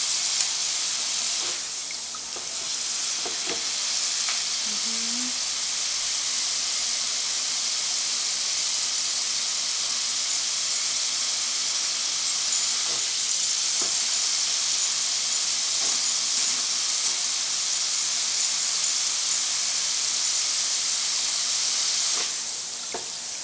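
Potato fries deep-frying in hot oil in the wire basket of an electric deep fryer: a steady sizzle with bubbling, the fries nearly done and turning light brown. The sizzle grows quieter about a second before the end.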